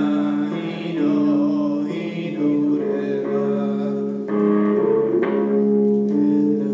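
Live psychedelic improvised music: a steady low drone with sustained notes above it that shift every second or so, with no drumbeat.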